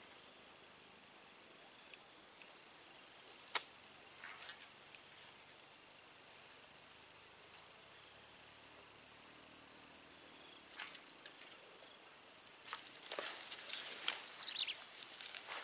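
Steady high-pitched chorus of insects in swamp vegetation, with one sharp click about three and a half seconds in and a few faint clicks and short chirps near the end.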